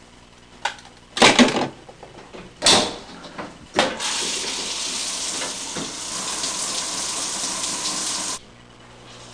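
A few knocks and clunks as a shower faucet knob is handled and turned, then shower water runs in a steady hiss of spray for about four and a half seconds and cuts off suddenly.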